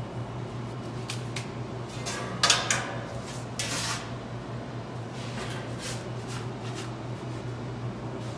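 Clattering and scraping of metal kitchen utensils, a few short bursts with the loudest about two and a half seconds in, over a steady low hum of kitchen equipment.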